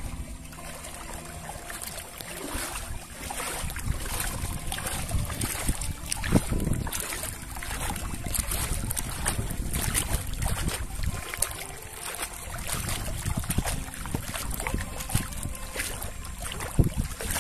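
Water sloshing and splashing with irregular small splashes, over the low rumble of wind on the microphone, as a fisherman works in a river.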